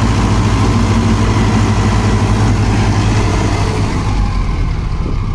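Mahindra Arjun Novo 655 DI 4WD tractor's diesel engine running steadily as it tows another tractor, a continuous low rumble; its note shifts slightly about four seconds in.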